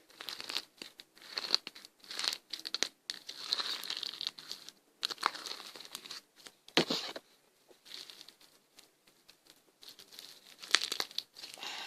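Crunchy slime with plastic beads being squeezed and stretched by hand, giving repeated bursts of crackling and popping.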